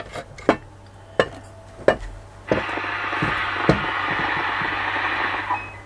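Handling of a metal-cased SWR analyzer and a dummy load as they are connected: a few sharp clicks and knocks, then a steady scraping hiss for about three seconds that stops shortly before the end.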